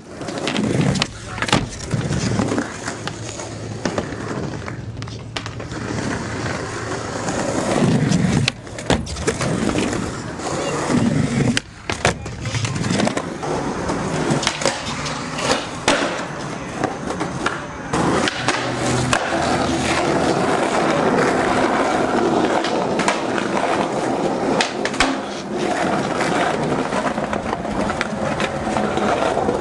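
Skateboard wheels rolling over concrete, with sharp clacks of the board popping and landing many times.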